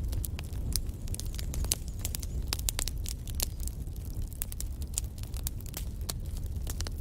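Wood fire in a fireplace: burning logs crackling and popping irregularly, several snaps a second over a steady low rumble of flame.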